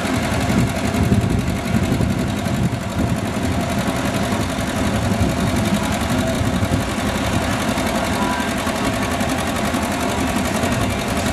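1948 John Deere B's two-cylinder engine working hard under full load, pulling a weight-transfer sled with a fast, steady popping beat.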